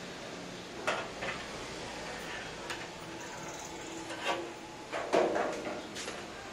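A few sharp metal clanks and clicks over a steady hiss, from someone working at the gas burner under a pan-fried bun griddle with a long lighter. The loudest clanks come in a cluster about five seconds in.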